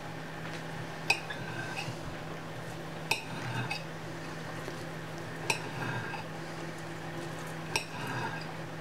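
Light clinks of hands and utensils against a china dinner plate while food is handled on it: four short taps spread out across a few seconds, with soft rustling between them, over a steady low hum.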